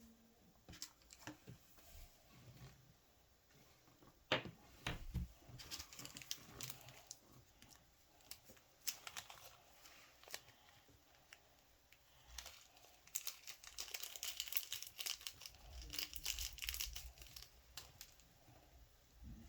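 Slime being handled and squished by hand, giving irregular crackling and crinkling sounds, densest in a run of crackles past the middle.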